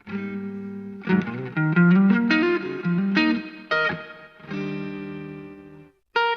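Electric Telecaster-style guitar with Fleor Alnico V pickups played through a Vox VT20X amplifier. A held chord gives way to a quick run of picked single notes, then a second chord rings out and is cut off, and a new phrase starts near the end.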